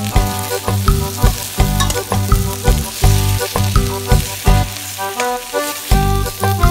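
Mutton pieces sizzling and frying in a steel pot as they are stirred, under background music with pitched notes and a steady beat.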